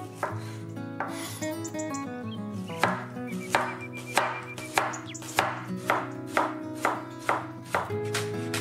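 Chef's knife slicing the white bulb of a spring onion on a bamboo cutting board, the blade tapping the board in a steady rhythm of about two cuts a second from about three seconds in. Background music plays throughout.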